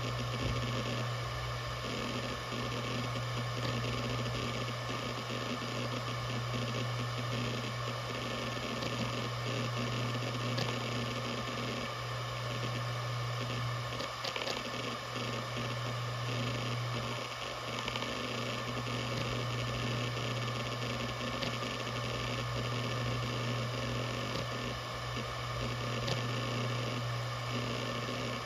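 Maxtor DiamondMax 17 160GB 7200 RPM hard drive running with a steady buzzing hum, an odd buzz that is normal for this model, with a few faint ticks here and there.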